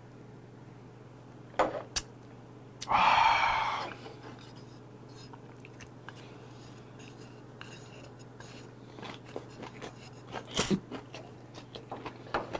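A man's loud, breathy 'khaa' exhale lasting about a second, just after a shot of 50% kaoliang liquor, preceded by two sharp clicks. Later come close-up chewing and lip smacks while he eats yangjangpi, getting busier near the end.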